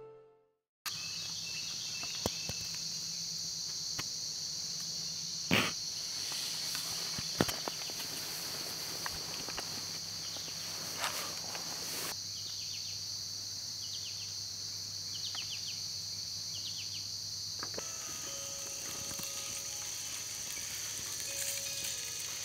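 Steady high chorus of insects outdoors, with a couple of sharp knocks early on and faint short chirps partway through. Near the end the chorus thins and the background changes.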